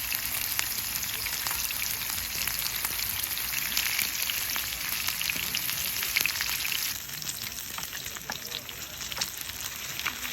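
Food sizzling and crackling as it fries, a steady hiss with fine pops throughout. It drops suddenly to a quieter sizzle about seven seconds in.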